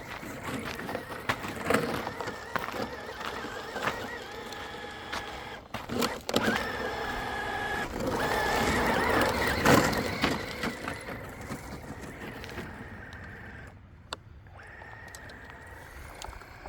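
Axial SCX6 Honcho RC crawler driving: its electric motor and gears whine, rising and falling in pitch as the throttle changes, with scattered clicks and knocks. The whine is loudest about halfway through and eases off toward the end.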